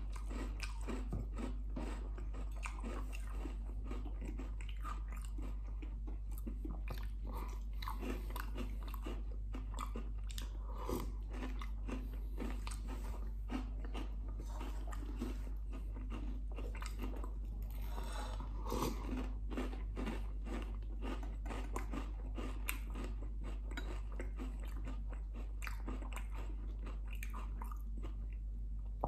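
A person chewing a mouthful of crunchy breakfast cereal close to the microphone: a steady, irregular run of crunches over a steady low hum.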